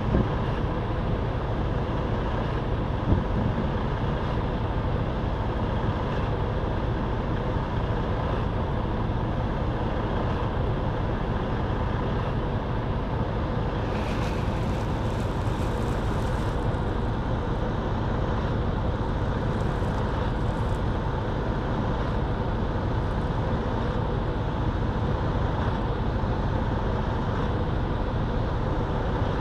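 Steady road and engine noise of a moving car, heard from inside the cabin, with a low rumble and a faint hum. There is a brief hiss about halfway through and a single short knock about three seconds in.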